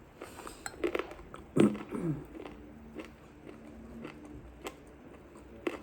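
Close-up chewing of chicken bone and the cartilage on it: a string of separate crunches, with a brief vocal murmur about one and a half seconds in.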